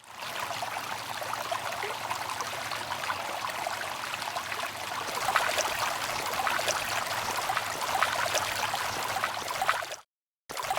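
Water running or pouring in a steady trickling stream, cutting off abruptly near the end.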